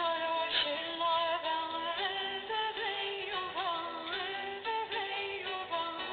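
Background music with a sung vocal line over instrumental accompaniment.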